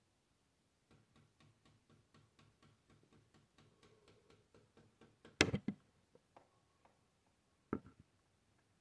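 A run of faint, even clicks, about four or five a second. About halfway through comes a loud cluster of knocks, and a single sharp knock follows near the end.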